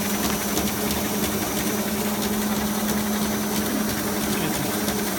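Small film slitter-rewinder running, a steady machine hum with a low steady tone as the slit film strips wind onto the rewind shaft.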